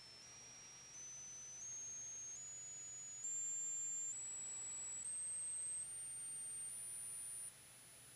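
Faint stepped sine-wave test tone from a distortion-versus-frequency sweep, climbing in pitch one step about every 0.8 s, about ten steps, through the high treble.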